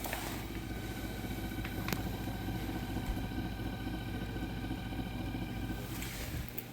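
Frigidaire dishwasher drive motor humming steadily while bogged down after the tub has filled. The technician takes this as the sign of a bad drive motor, possibly with a failed start capacitor. A single click sounds about two seconds in, and the hum cuts off near the end.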